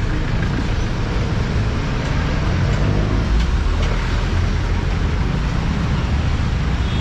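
Steady street traffic noise: motorcycles, tricycles and cars running past close by, with a heavy low rumble.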